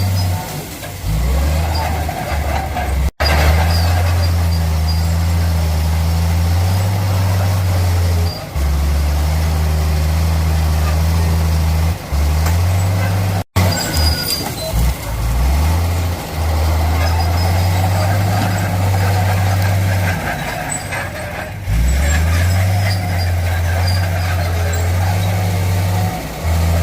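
Heavy diesel bulldozer engines running under load with a steady low drone, their pitch dipping and recovering several times as the engine works. The sound drops out for an instant twice, about 3 and 13 seconds in.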